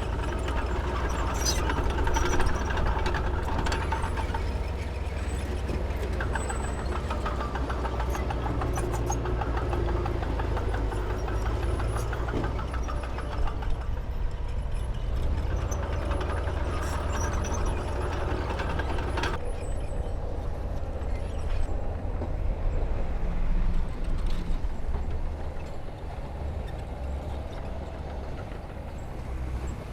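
Heavy diesel earthmoving machinery working, a steady low engine drone with a few sharp clanks. The higher-pitched part of the noise drops away about two-thirds of the way through.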